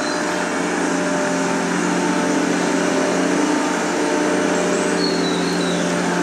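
A steady droning hum of several held tones, unchanged throughout, with a few faint high chirps now and then.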